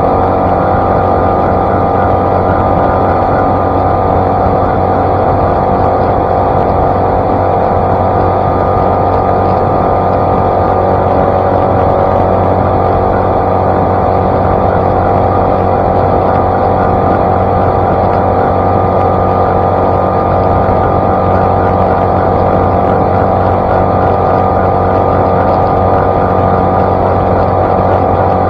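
Outboard motor of an Ankona Shadow Cast 16 skiff running steadily at high speed with the boat on plane, its pitch unchanging, over the rush of water off the hull.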